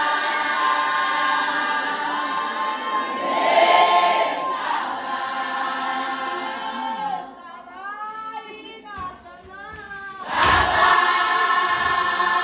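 A large group of young women singing together in long held notes. Near the middle the singing thins to a few quieter voices, then the whole group comes back in loudly, with a sharp loud strike as they re-enter.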